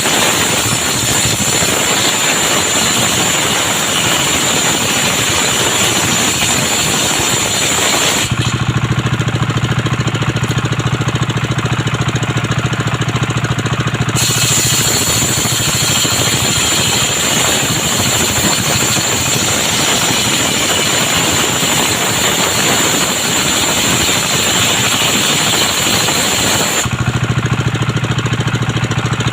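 Circular sawmill blade ripping lengthwise through coconut wood, with a high hiss over the steady drone of the engine driving it. The cut pauses about 8 s in and resumes about 14 s in. Near the end it stops again, leaving only the engine and the free-spinning blade.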